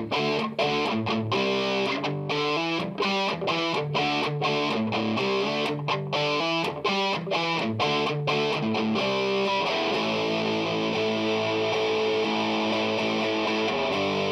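Background music led by guitar: short, stop-start chords for the first nine seconds or so, then held, sustained chords.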